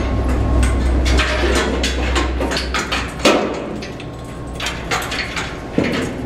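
Irregular knocks and clanks, one sharp knock about three seconds in, over a low rumble that fades out about halfway through.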